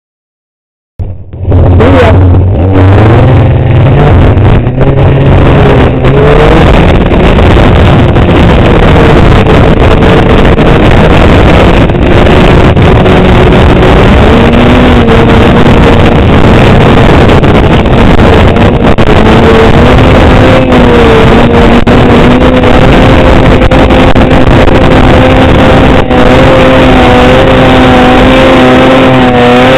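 Snowmobile engine working hard at high revs on a climb, cutting in about a second in and very loud; its pitch wavers and rises in steps as it goes.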